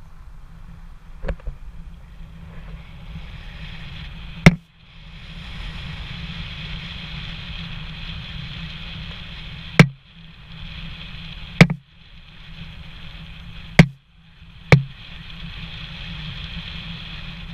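A car driving along a road: steady road and wind noise, broken by about six sharp, loud knocks at uneven gaps. After each knock the sound briefly drops away.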